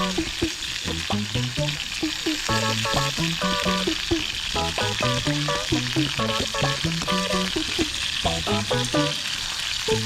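Meat sizzling steadily on a grill over a fire-pit stand, under background music of short, plucked-sounding notes moving in a stepping melody.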